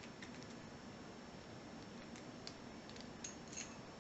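Faint, scattered light metallic clicks and ticks from a laminated padlock and lock pick being handled, with a few small high-pitched clinks near the end.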